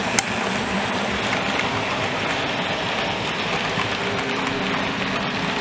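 OO gauge model train coaches rolling past on the track: a steady rattle of small wheels on rail with a faint hum underneath, and one sharp click just after the start.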